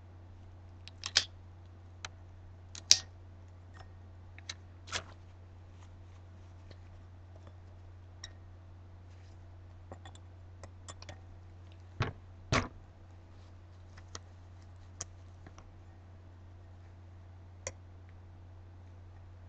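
Scattered small clicks and taps as gloved hands handle a paper stencil against a wine glass. The loudest come about one and three seconds in, with a close pair near twelve seconds. A steady low hum runs underneath.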